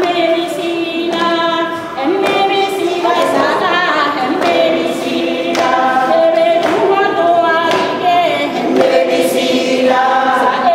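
A group of women singing a song together, holding long notes that change in pitch from one note to the next.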